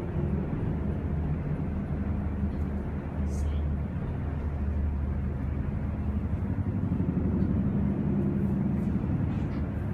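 Steady low background rumble with faint, muffled voices.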